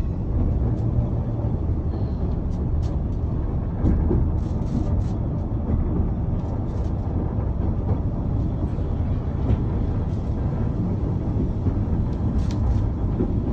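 Steady low rumble of a narrow-gauge railway carriage running along the track, heard from inside, with occasional light clicks and rattles.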